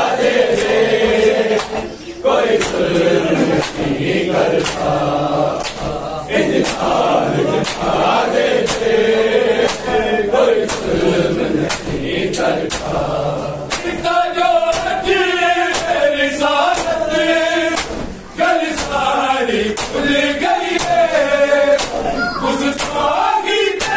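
Group of men chanting a noha in unison, with a steady beat of open-hand chest slaps (matam) a little faster than one a second. About halfway through the melody becomes clearer and more sung.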